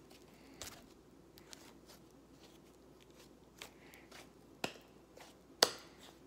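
Yellow slime being squeezed, folded and stretched between the hands, with soft sticky handling and a few sharp pops, the loudest near the end.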